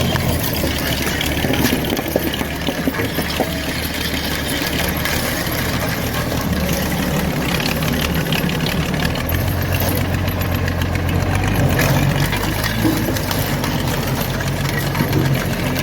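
Bulldozer's diesel engine running, its note shifting lower and then higher from about nine to twelve seconds in, with a scatter of sharp cracks over it.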